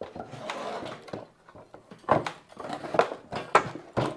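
Hands-on work on a truck axle hub: a scraping rustle of parts being shifted, then about five sharp, irregular knocks over the last two seconds.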